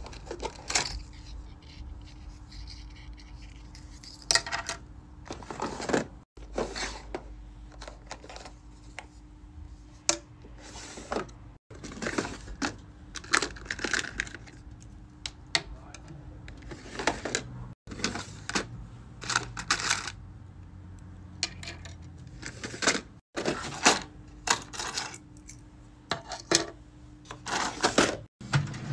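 Small hard items clicking and clattering as a hand rummages through clear plastic organizer bins and drawers. Keychain pieces and gold-capped tubes knock against the plastic and each other in quick bursts, over a faint steady hum.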